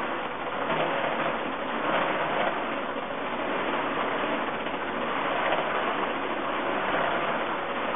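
A steady rushing noise with no distinct events, like the running noise of a moving vehicle.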